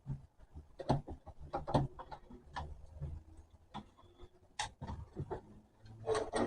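Irregular mechanical clicks and clacks from an antique manual typewriter's mechanism being handled and worked, about a dozen in all, with the loudest one past the middle and a quick cluster near the end.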